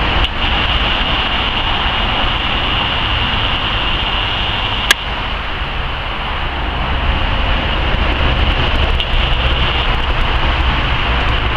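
Steady rumbling, hissing background noise, with one sharp click about five seconds in.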